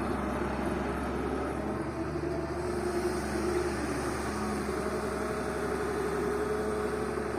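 Excavator's diesel engine running steadily, an even low hum.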